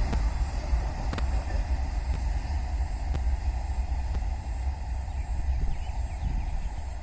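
Freight train rolling away into the distance, its rumble slowly fading, with wind buffeting the microphone.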